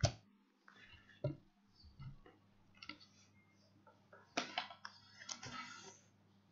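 A keyboard in its cardboard box being handled: scattered sharp clicks and taps, with a stretch of crinkling plastic wrap about four to six seconds in.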